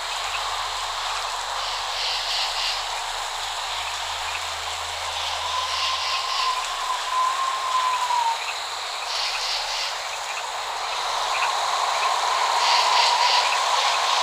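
Steady rain falling with an even hiss. A short burst of high chirping calls repeats about every three to four seconds, and a thin droning tone comes in twice.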